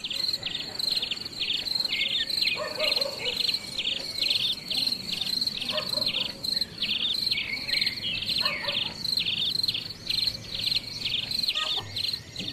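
Insects chirping in a fast, even rhythm: a sharp high pulse about three times a second over a steady high ringing tone, with a few faint lower calls underneath.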